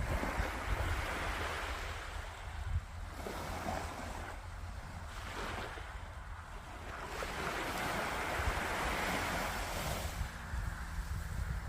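Sea surf washing onto a beach in slow surges that swell and fade, with wind rumbling on the microphone.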